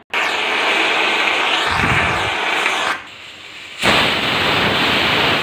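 Aluminium pressure cooker's weighted whistle venting steam on a gas stove: two long, loud hissing blasts, the second starting a little under four seconds in. The cooker has reached full pressure as the rice and moong dal cook.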